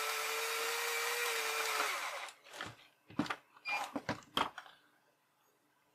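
Craftsman cordless drill running steadily, turning a tap that cuts teeth into an M8 bolt held in a 3D-printed hobbed bolt jig; the motor winds down and stops about two seconds in. A few sharp clicks and knocks follow as the jig and drill are handled.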